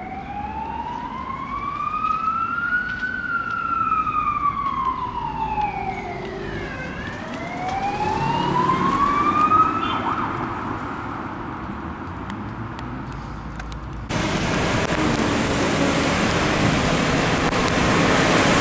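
Fire engine siren on a slow wail, its pitch rising and falling over several seconds and dying away after about ten seconds. About fourteen seconds in, it cuts abruptly to a louder, steady road-vehicle engine and traffic noise.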